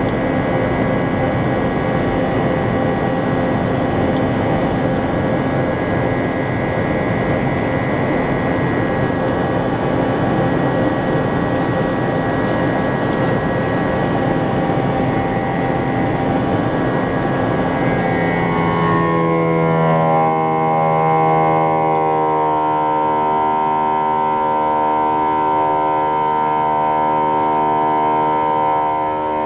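Airbus A321 jet engines at high takeoff power, heard from inside the cabin: a loud, dense rumble with a few steady tones. About two-thirds of the way through, the deep rumble thins and a buzz-saw drone of many steady tones stacked together takes over.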